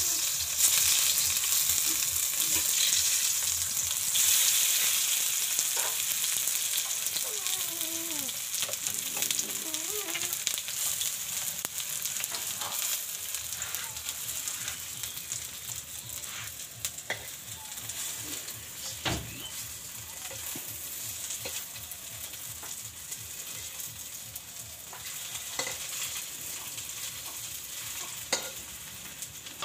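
Mustard-flower fritters sizzling in hot oil in a metal wok, with occasional sharp clicks of a spatula against the pan. The sizzle is loudest at first and slowly dies down.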